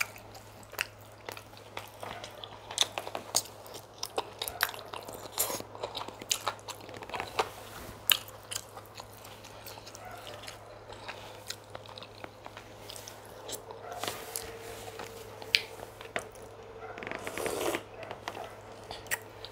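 Close-miked eating sounds of chicken pepper soup and fufu: steady chewing with wet mouth smacks and many sharp, irregular clicks and crunches, and a denser burst a little before the end.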